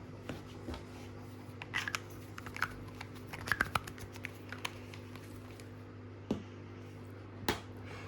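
Light clicks and taps of metal parts being handled at an electric scooter's folding stem latch, a quick cluster in the middle and two single knocks later, over a steady low hum.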